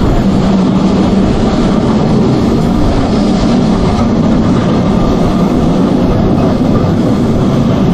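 Electric street tram running along its rails: a steady loud rumble with a low hum running through it.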